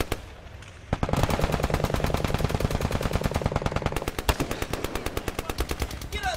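Machine-gun fire: a long, continuous stream of rapid automatic shots starts about a second in, after a short lull, and lasts about five seconds before stopping just before the end.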